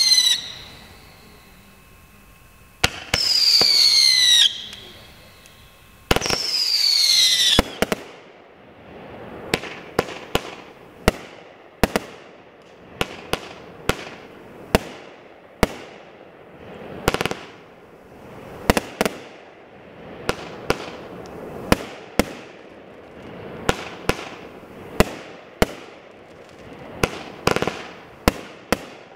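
500-gram firework cake (Winda B2 Bomber, 36 shots) firing. In the first few seconds it sends up three whistling shots that fall in pitch as they climb. After that it fires a quick run of shots, each ending in a sharp bang, about one to two a second with crackle between.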